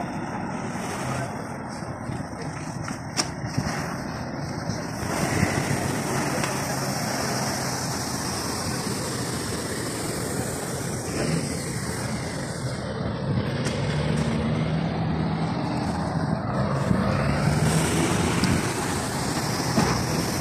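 Steady outdoor vehicle noise with a truck engine running, its low hum growing stronger past the middle.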